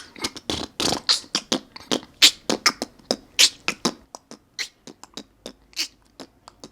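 Beatboxing-style mouth sounds from the snorer: a quick, uneven run of clicks, pops and hisses, about three or four a second, starting suddenly.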